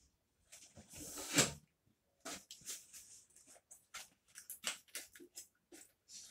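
Scattered rustles, clicks and light knocks of handling at a table: paper being handled, then a large plastic milk bottle being picked up. A louder rushing swell stands out about a second in.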